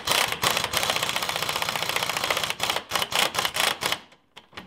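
Impact wrench hammering on the front leaf-spring eye bolt of a Jeep Cherokee, running the bolt in but not tightening it down. There is one long rapid rattling run, then several short bursts, and it stops shortly before the end.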